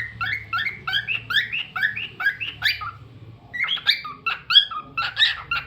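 Lutino cockatiel chirping: a steady run of short, rising chirp notes about three a second, then after a brief pause a quicker, more jumbled cluster of chirps.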